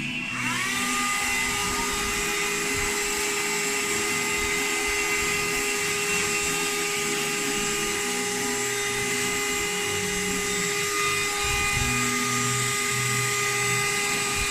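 Small cordless handheld vacuum cleaner switched on: its motor spins up within the first second and then runs at a steady high whine.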